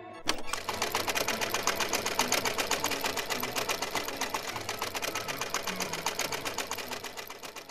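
A fast, steady mechanical clatter of about ten ticks a second, fading out near the end.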